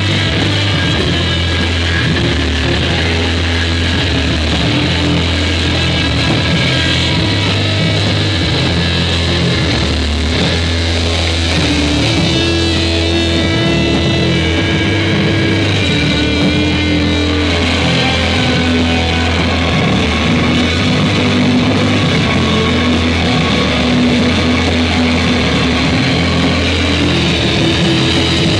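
A rock band playing loud: an electric guitar and a drum kit.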